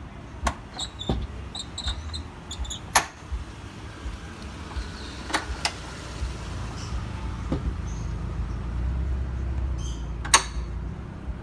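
Sharp clicks and knocks of a car's panels or doors being handled and shut, over a steady low rumble. Short high chirps sound near the start and again near the end.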